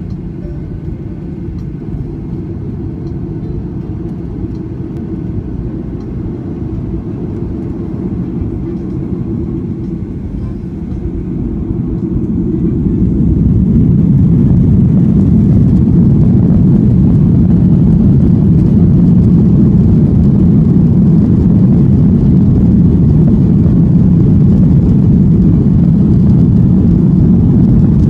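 Boeing 737-800's CFM56 jet engines and cabin noise heard from a window seat over the wing while the airliner taxis: a low, steady noise. It grows louder about twelve seconds in and then stays level.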